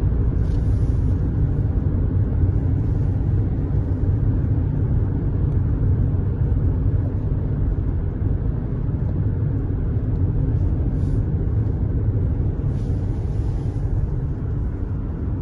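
Steady low rumble of road and engine noise inside a car's cabin, driving at highway speed.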